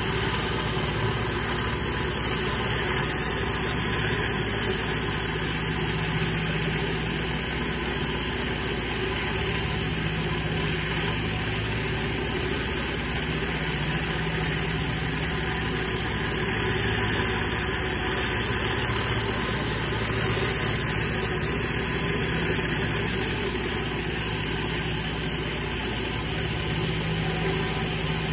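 Pressure washer running steadily, its engine hum under the constant hiss of water from a flat surface cleaner being pushed over wet stone paving.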